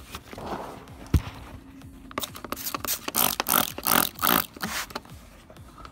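Hand trigger spray bottle squirting cleaner in a rapid series of short sprays, about three or four a second, for roughly three seconds. A single sharp thump comes about a second in.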